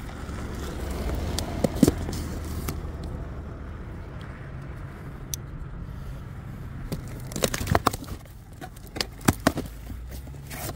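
A folding knife slicing the tape on a cardboard shipping box, with scraping and a few sharp clicks, then the cardboard flaps being pulled open with a run of crackles and snaps in the second half, all over a low steady rumble.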